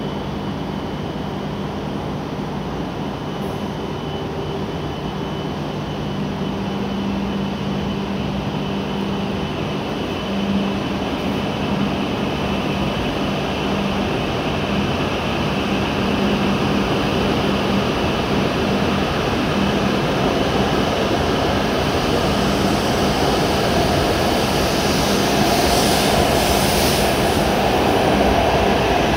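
E7-series Shinkansen train standing at the platform with a steady low hum and a faint high tone from its running equipment, then pulling away. The sound grows gradually louder as the train gathers speed near the end.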